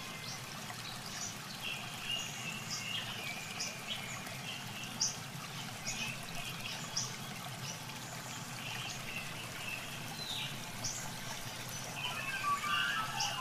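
Muddy water sloshing and dribbling as hands work through a flooded mud pit, feeling for fish. Short high chirps come and go throughout.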